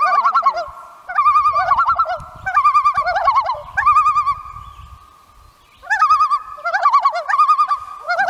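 Common loons giving tremolo calls: repeated short bursts of a rapid quavering laugh, with a pause of about a second near the middle. In the second half two voices overlap.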